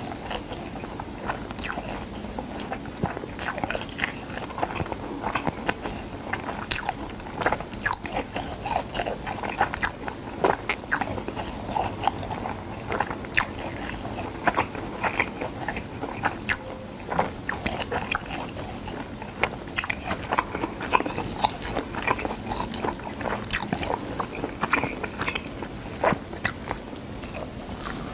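Chewing and biting dried gamtae seaweed sheets close to the microphone: a dense, irregular run of crisp crunches and crackles with wet mouth sounds.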